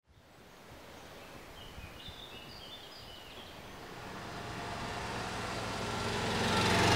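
Outdoor ambient noise fading in, with a few short, high bird chirps. Music swells in gradually over the second half.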